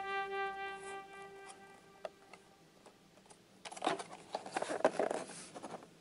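Clear plastic blister packaging crinkling and clicking in a dense flurry for about two seconds as the carded toy is handled, after a held synthesizer chord fades out over the first two seconds.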